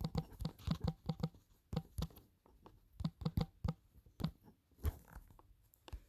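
Fingertips tapping on a smartphone touchscreen while typing a search, an irregular run of soft taps. They come fast at first, then in short clusters with gaps, thinning out toward the end.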